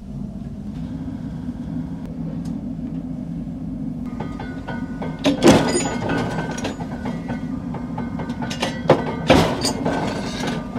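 Flywheel-driven mechanical metal shear running with a steady hum, then cutting knife blanks off a steel bar: two loud metallic clanks, about five and a half and nine and a half seconds in, with metal ringing between them.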